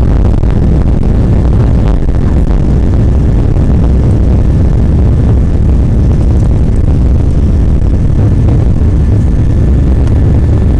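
Boeing airliner's jet engines at takeoff thrust, heard from inside the passenger cabin through the takeoff roll and liftoff: a loud, steady rumble.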